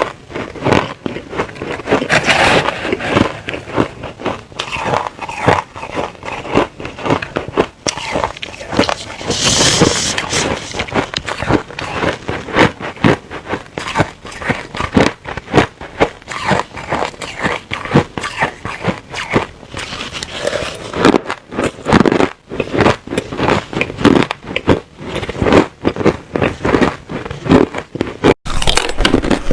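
Crushed ice being bitten and chewed close to the microphone: a rapid, continuous run of hard crunches, with a brief cut-out near the end before the crunching starts again.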